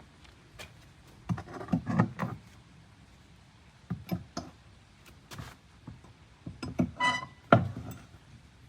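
Hand tool knocks and clatter of nails being worked out of wooden deck boards, with a short squeal about seven seconds in as a nail pulls out of the wood.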